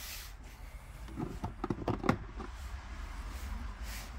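Backing film being peeled off a small plastic stick-on interior trim piece: a quick run of crackles and clicks about a second in, over a steady low rumble.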